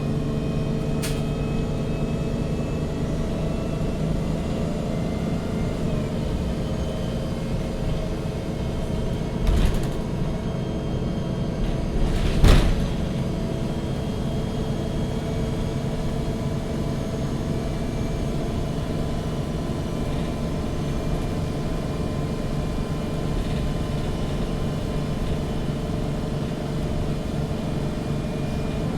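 Cabin sound of a MAN NG 313 CNG articulated natural-gas bus running: a steady engine and running drone with even tones. A couple of short knocks or rattles stand out about a third of the way in and just under halfway.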